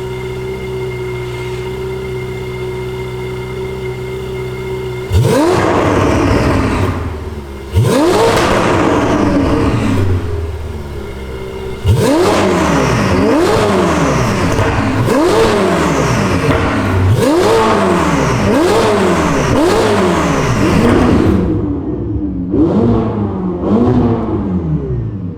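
Ferrari engine idling steadily, then blipped on the throttle through its exhaust: two single revs about five and eight seconds in, then a run of quick revs about every second and a half, easing off and quieter near the end.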